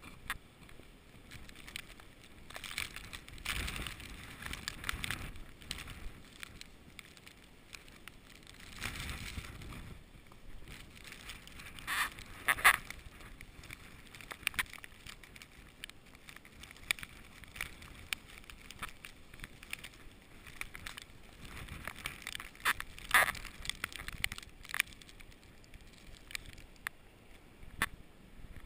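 Snowstorm wind buffeting the microphone, swelling in several gusts, with scattered sharp crackles and clicks in between.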